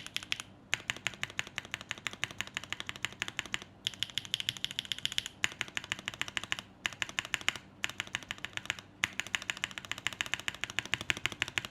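Fast typing on a mechanical keyboard with Gateron Summertime switches, in several runs of rapid keystrokes broken by short pauses. This is a keycap sound comparison, with double-shot ABS plastic keycaps and ceramic keycaps on the same board.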